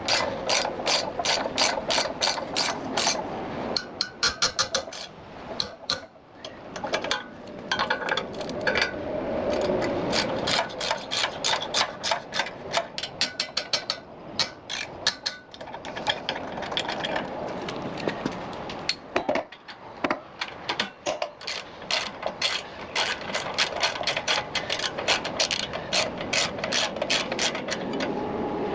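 Hand ratchet wrench clicking in quick runs of strokes with brief pauses, as bolts are turned on the engine.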